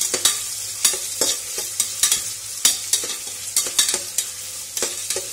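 Sliced onions sizzling as they fry in hot oil and ghee in a pressure cooker, stirred with a spatula that knocks and scrapes against the pot about three times a second at an uneven pace.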